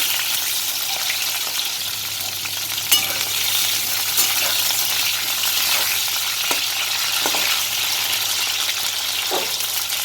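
Pieces of pointed gourd (potol) frying in hot oil in a kadai: a steady sizzle, with a couple of sharp clicks about three and four seconds in.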